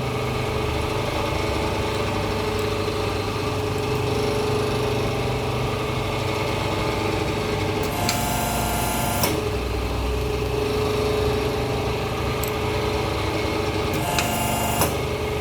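Hydraulic hose crimping machine's power unit running with a steady motor hum and a held tone. Two short bursts of hissing come through it, the first about eight seconds in and lasting just over a second, the second shorter and near the end.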